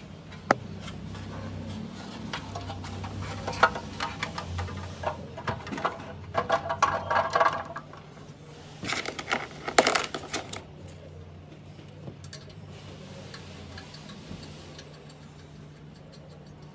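Nissan Altima engine idling with a steady low hum, its exhaust manifold cracked and leaking. Irregular metallic clicks and clattering come between about three and ten seconds in.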